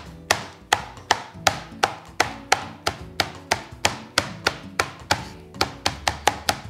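The bottom of a large tumbler pounding chicken flat inside a plastic zip-top bag on a plastic cutting board, in place of a meat mallet. Sharp thuds come in a steady rhythm of about three a second.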